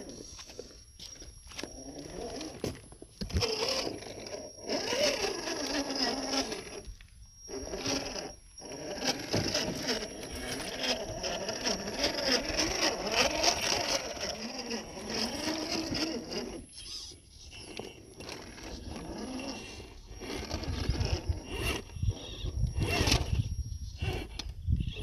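1/10 scale RGT EX86120 rock crawler's electric motor and gearbox whining, the pitch wandering up and down with the throttle, with scattered knocks and scrapes as it crawls over rocks.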